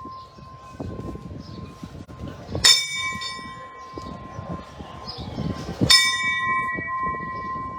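A bell struck twice, about three seconds apart, each stroke ringing on in a long steady tone. It is already ringing from an earlier stroke at the start.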